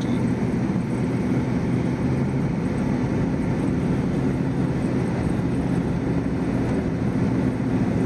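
Plow truck's engine running in a steady drone with road and tyre noise, heard from inside the cab while driving.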